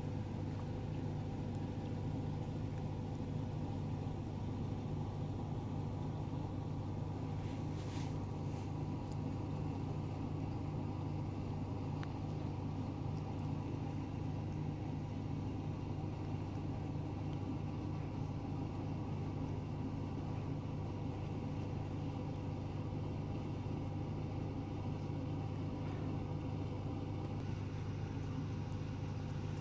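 A steady low hum, even throughout, with a faint click about eight seconds in.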